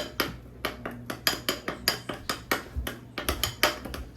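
Spoon clinking and knocking against a bowl and other dishes, a quick run of sharp clicks at about five a second.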